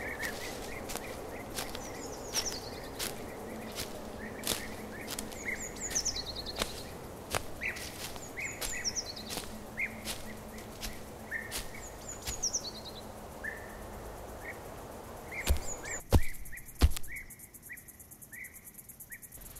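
Forest ambience from an animation sound track: birds call with falling, whistled chirps every couple of seconds over a steady hiss, with scattered sharp clicks and snaps. About three-quarters of the way through come a few heavy thumps, then the hiss drops away and only short, evenly spaced chirps remain.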